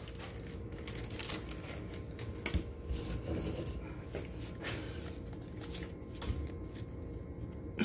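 Pokémon trading cards being handled, with scattered light rustles and clicks.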